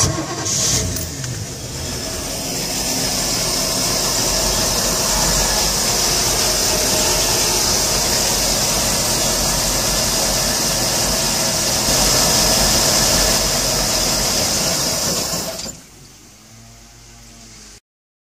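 Volvo Penta AQ211A V8 marine engine started with the key and running steadily at idle, drawing antifreeze from a bucket through its water intake hose into the cooling system. The sound cuts off sharply near the end.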